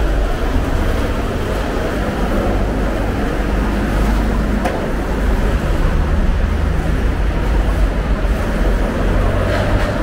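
Car traffic passing along a city street: a steady noise of engines and tyres on the road.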